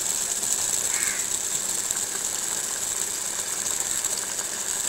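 Steady sizzling hiss of a tomato chicken curry cooking in its pot on the stove.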